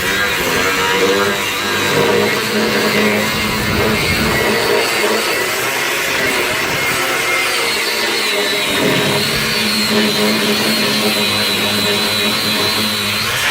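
Power cutting tool running and cutting through the steel bulkhead panel of a car body, with a high whine from about halfway in, as background music plays.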